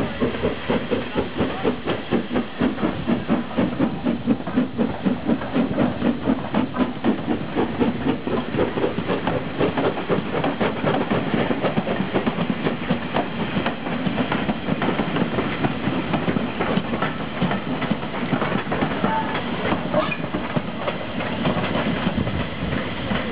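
Two steam tank locomotives, a GNR N2 0-6-2 tank and a J94 0-6-0 saddle tank, working a train together, their exhaust beats coming in a fast, even rhythm. The beats grow less distinct in the second half, and the rumble of the train on the rails carries through.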